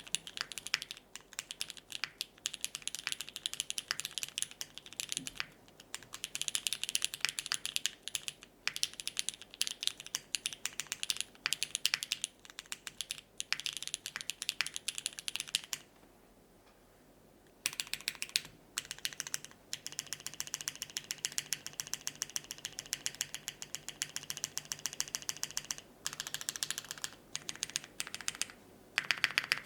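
Typing on a Keycult No. 2/65 mechanical keyboard with lubed and filmed retooled Cherry MX Black linear switches, an aluminium plate and GMK keycaps. The key presses come in quick runs, with a pause of about a second and a half two-thirds of the way in, then faster, denser presses.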